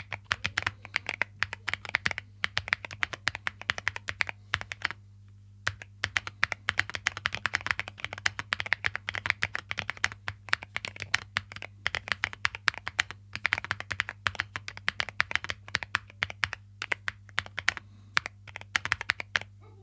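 Typing on a MonsGeek M1V3 mechanical keyboard: a steady run of quick key clacks, with a pause of about a second around five seconds in. A faint low hum sits under it.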